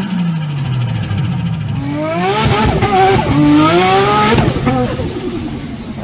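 Nissan Skyline GT-R's RB26 straight-six with a big single turbo, free-revving: the revs fall at the start with a rapid turbo flutter as the throttle closes. About two seconds in it is revved up again with a rising turbo whistle, and from about four seconds the revs and the whistle fall away together.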